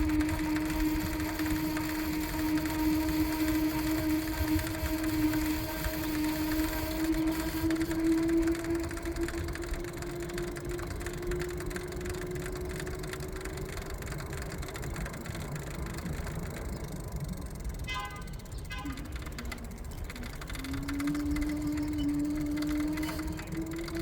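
New Xpeak electric hub motor running with a steady whine that slowly rises in pitch, over a fast rattle. About three-quarters of the way in the whine drops away with a short run of clicks, then picks up and climbs again. The rattle is the noise the owner is complaining of in the new motor.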